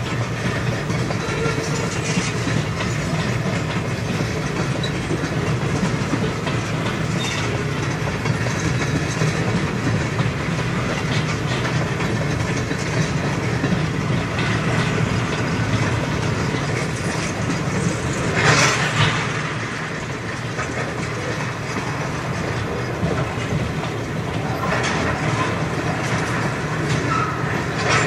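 Freight train of tank cars rolling past, a steady rumble with the clickety-clack of wheels over rail joints, heard from inside a parked vehicle. About two-thirds of the way through there is one brief, louder burst of noise from the passing cars.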